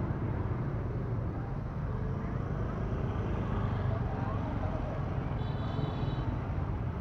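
Street ambience of a steady hum of motorbike traffic with faint voices. A short high-pitched tone sounds about five and a half seconds in.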